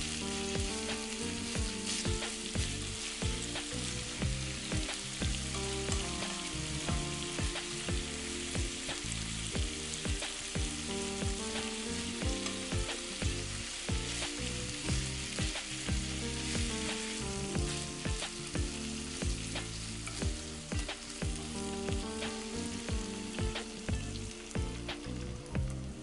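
Chicken thighs and vegetables sizzling in a frying pan: the chicken, flipped after its skin has browned, is searing on its meat side. Background music with a steady beat plays underneath.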